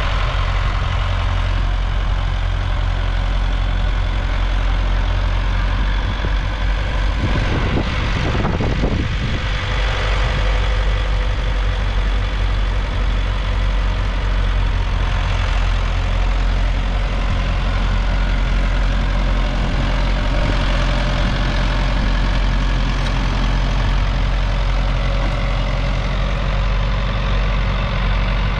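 International Harvester 685 tractor's 3.9-litre four-cylinder diesel engine running steadily as it pulls a two-furrow mounted plough, with a brief rush of noise about eight seconds in.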